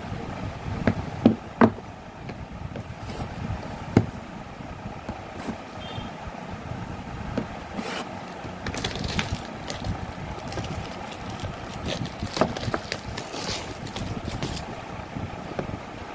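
A shrink-wrapped phone box being handled on a table: a few sharp knocks and taps in the first few seconds, then scratchy rustling and scraping of the box and its plastic wrap from about halfway through, over a steady low background hum.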